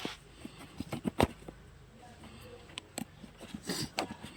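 Handling noises from unboxing a smartphone: scattered light taps and clicks, the sharpest about a second in, and a brief rustle of packaging later on.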